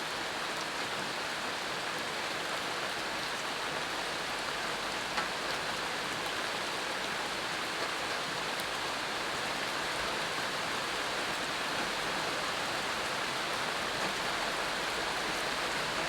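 Steady rain falling, an even hiss of rain on surfaces with scattered drops.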